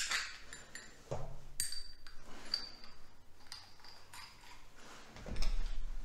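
Small brass parts of an oxygen-lance holder's locking head clicking and clinking as they are fitted together by hand: several light taps with short metallic pings, then a louder, duller handling knock near the end.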